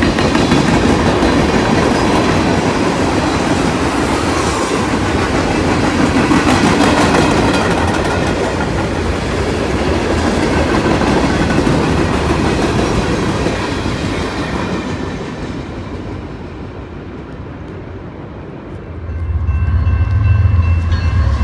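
Freight train of tank cars rolling past, wheels clattering over the rail joints, dying down as the last cars go by. About 19 s in, the steady low drone of an approaching BNSF GE GEVO diesel locomotive's engine starts.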